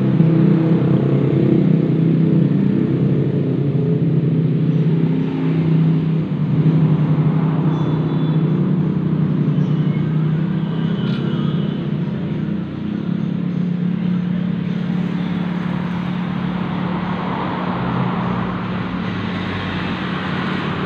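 Suzuki Satria FU 150's single-cylinder four-stroke engine idling steadily and smoothly, freshly rebuilt.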